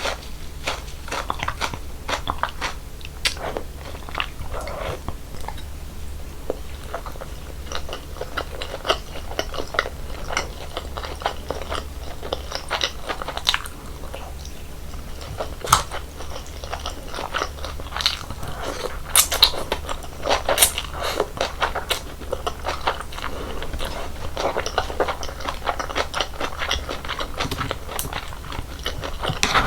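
Close-miked eating sounds of cold water naengmyeon: irregular crunching bites and chewing, with sharp crisp crunches scattered throughout.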